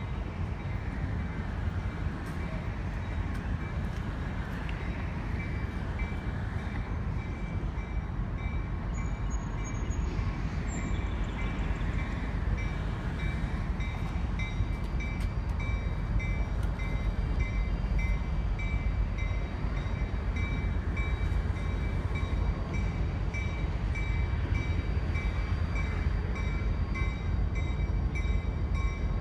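Diesel locomotive hauling passenger cars approaching: a low, steady engine rumble that grows gradually louder as it nears.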